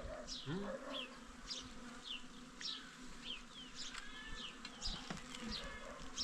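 Steady insect buzzing, with short high downward-sweeping chirps repeating about twice a second.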